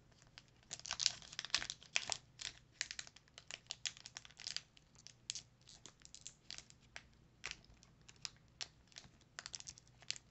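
Foil wrapper of a Pokémon trading card booster pack crinkling and tearing as it is pulled open by hand, a run of sharp, irregular crackles.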